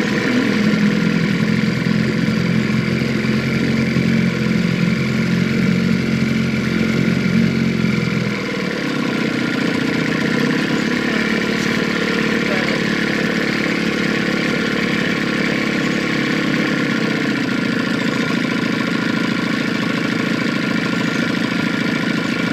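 Boat motor running steadily; its note changes about eight and a half seconds in, then runs on steadily.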